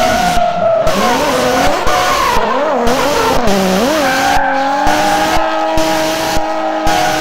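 Tyre screech sound effect: a squeal wavering up and down in pitch for about four seconds, then settling into a long steady squeal.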